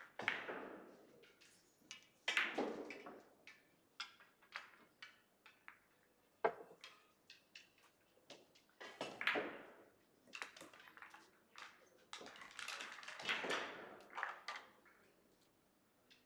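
Russian pyramid billiard balls knocking and clattering together as they are gathered by hand and packed into the triangle rack to set up a new frame: a string of sharp clacks and short rattling runs, several seconds apart.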